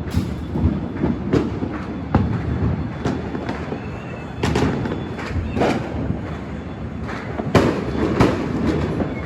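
Fireworks and firecrackers going off: irregular sharp bangs over a continuous low rumble of more distant explosions, the loudest two bangs near the end.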